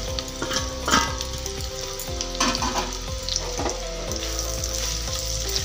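Sliced onions sizzling in hot oil in a non-stick kadhai, a steady frying hiss broken by a few light clicks and knocks.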